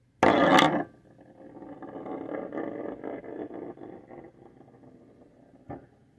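Thick glossy slime being stretched and pooling onto a table, giving a soft crackly, squishy sound that fades out. It opens with a loud half-second burst of noise, and there is a single sharp click near the end.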